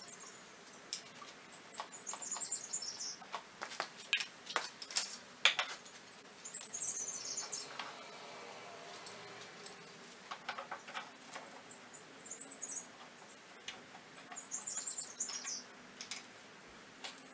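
Sharp clicks and knocks of a plastic pocket-hole jig and a metal C-clamp being handled and tightened onto a wooden board. High twittering chirps of small birds come in short bursts several times.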